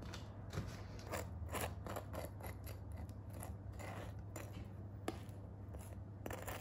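A run of short, crisp snips and scrapes at an irregular pace, two or three a second, over a steady low hum.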